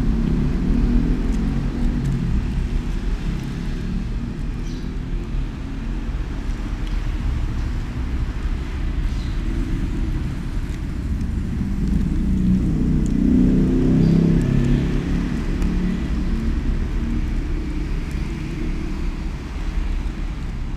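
Low, steady rumble of passing road traffic, swelling as a vehicle goes by about twelve to fifteen seconds in.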